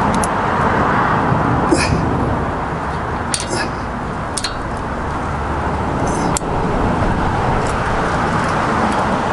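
A few light, sharp clicks of metal parts and tools being handled while sway bar end link hardware is fitted, over a steady background noise.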